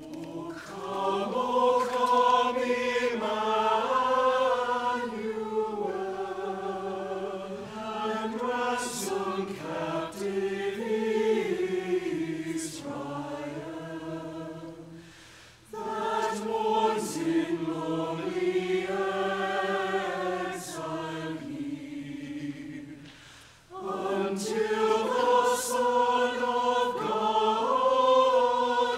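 Church choir singing together in three phrases, with short breaks about 16 and 24 seconds in.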